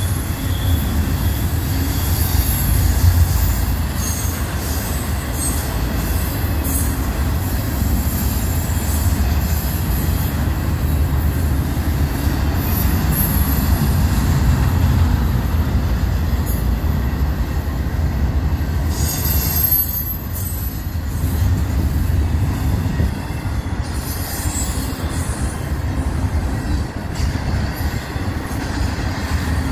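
Double-stack intermodal freight cars rolling past: a steady, loud low rumble of steel wheels on rail, with a faint high-pitched wheel squeal coming and going.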